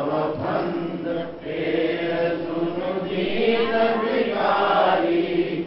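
Devotional chanting in long, held notes on a steady pitch.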